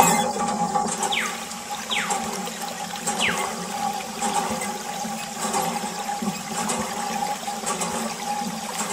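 Water running from the spout of a miniature hand pump into a small bucket as its handle is worked, over a steady hum.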